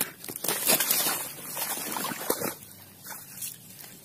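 Irregular rustling and scuffling with quick crackles, loudest in the first two and a half seconds, then fading: a freshly landed tilapia flapping about while it is handled.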